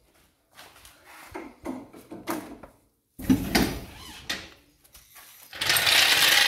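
Metal trolley jack handled under a van on a concrete floor: scattered knocks and clanks, then near the end about a second of loud scraping as the jack is dragged out from under the van.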